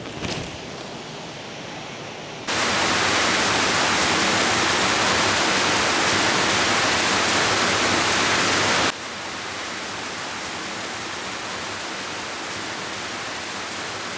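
Steady rushing noise of the 700-metre Gocta waterfall's falling water, with no distinct events. It jumps abruptly louder about two and a half seconds in and drops back to a lower steady level about nine seconds in.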